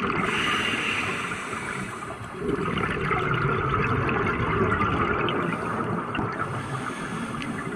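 Scuba diver breathing through a regulator underwater: a steady rush of bubbling and gurgling that dips briefly about two seconds in, then surges again with the next exhaled bubbles.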